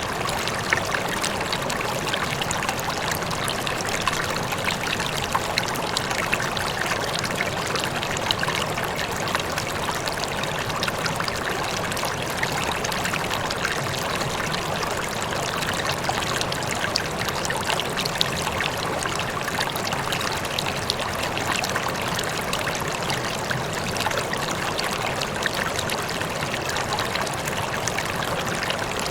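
Water rippling and trickling steadily, a constant babble of small splashes like a flowing stream.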